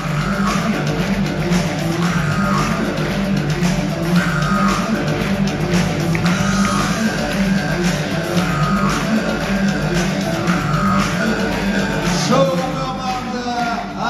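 Loud music with singing.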